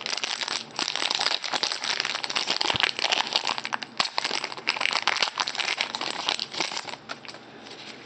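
Foil trading-card pack wrapper crinkling and tearing as it is opened by hand, easing off near the end as the cards come out.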